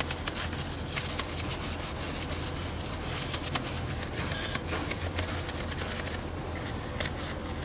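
Stiff-bristled wheel brush scrubbing a wet alloy wheel rim and spokes: a continuous scratchy rubbing with many quick scrapes as the bristles work loosened brake dust off the wheel.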